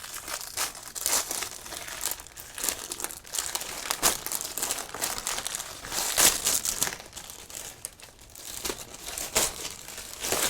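Packaging crinkling and rustling in irregular bursts as a merchandise item is handled and unwrapped by hand.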